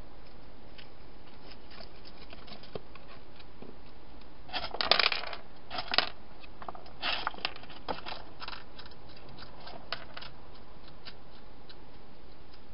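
Wild hedgehog moving about in a clear plastic box, making irregular scratchy crackles and clicks that are loudest just before and as it comes into view, over a steady hiss.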